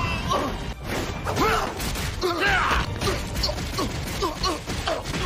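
Anime fight sound effects: a rapid string of short, pitched, creaking swishes with a few sharp hits among them.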